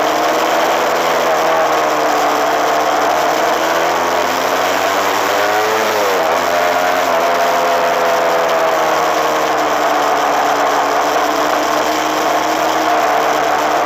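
Suzuki RMX250S 250cc two-stroke single-cylinder engine running while the bike is ridden. The engine note drops sharply about halfway through, as the revs fall, then climbs back.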